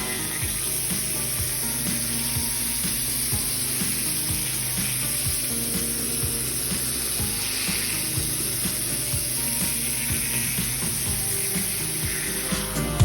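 Pressure washer spraying water onto patio paving: a steady hiss, with a low steady hum of the machine underneath.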